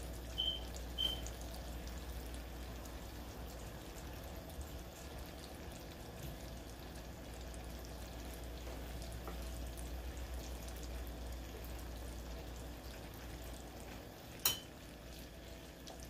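Sugar syrup boiling hard in a saucepan on a gas burner, a steady bubbling hiss; the candy has reached about 300 °F, the hard-crack stage. Two short high beeps sound about a second in, and a sharp click comes near the end.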